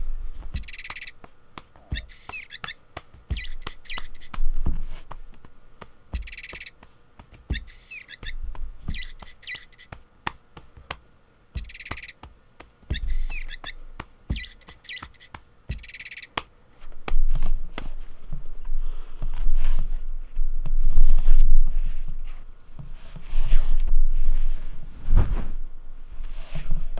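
Recorded bird chirps from a plush bird cat toy, a short call sequence repeating about every six seconds three times and then stopping, over soft thumps and taps of a hand patting a cat's rump, which come thicker and louder in the second half.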